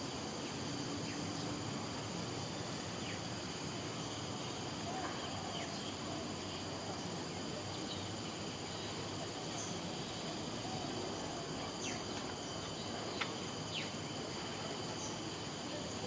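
A steady, high-pitched chorus of insects, several unbroken tones layered together, with a few brief faint chirps scattered through it.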